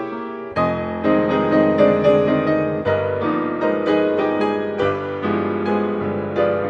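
Grand piano played solo: a full chord struck about half a second in, then a flowing run of notes and chords that ring on under one another.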